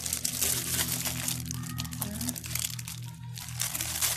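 Clear plastic wrapper on a pack of craft foam sheets crinkling as it is handled and the sheets are shifted inside it, in irregular crackles.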